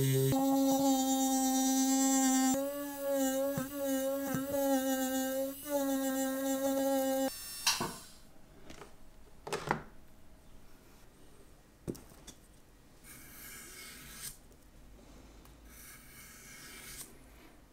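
Micromotor rotary tool with a felt polishing bob whining at a steady pitch as it polishes a steel watch case, the pitch dipping briefly a few times under load, then cutting out about seven seconds in. A few sharp clicks follow. Near the end an abrasive stick rasps across the case edge in two short bursts of strokes.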